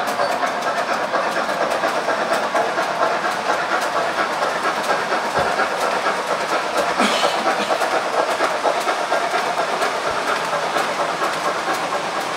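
Gauge 1 model steam train running over its track: a steady rolling noise with rhythmic clicking of wheels over rail joints and a steam-like hiss. A brief louder hiss comes about seven seconds in.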